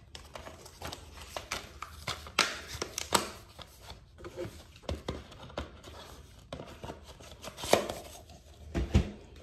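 Handling of a plastic DVD case and its paper insert: irregular clicks, taps and rustling, with a few sharper snaps.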